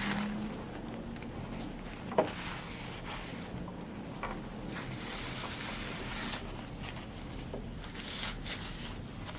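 Cloth rubbing and wiping over an electric scooter hub motor's stator, with one sharp knock about two seconds in.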